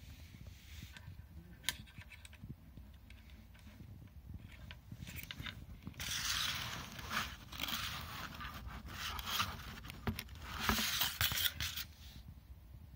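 Handling noise as a phone and a braided charging cable are moved about on a tabletop: scattered small clicks, then louder scraping and rustling from about halfway through.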